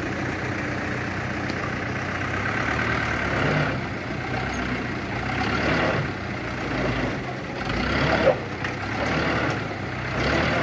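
Dump truck engine running steadily while its bed is raised in the tipping position, with a sharp knock about eight seconds in.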